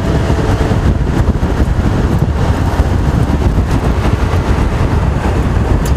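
Strong wind buffeting the microphone: a loud, steady rushing noise, heaviest at the low end.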